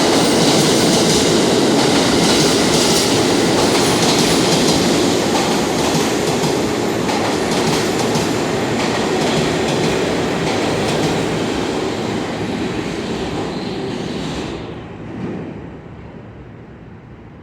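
New York City subway train running through the station, its wheels clacking over the rail joints. The noise fades away about fourteen seconds in as the train moves off.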